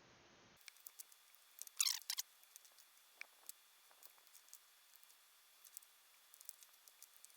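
Faint scattered plastic clicks and taps of five-pin mechanical keyboard switches being set into a circuit board and pressed down, with a louder scraping click about two seconds in.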